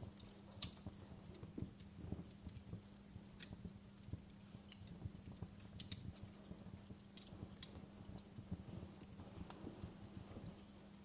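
Wood fire crackling in a fireplace: irregular small pops and snaps over a faint low hum.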